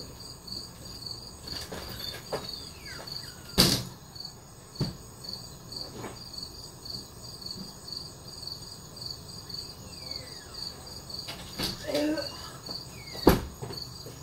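A cricket chirping steadily, about two to three high chirps a second, with a few sharp knocks in between, the loudest near the end.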